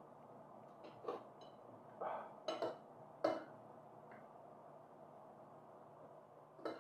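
Metal spoon clinking and scraping against a glass bowl while scooping food: several short clinks in the first three seconds or so, the loudest a little past three seconds in, then a lull before another clink near the end.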